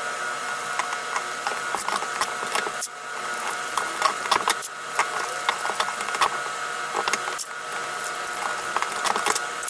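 Clear packing tape being pulled off its roll and pressed onto a paper pattern on a board: irregular crackling and clicking throughout, over a steady background whine.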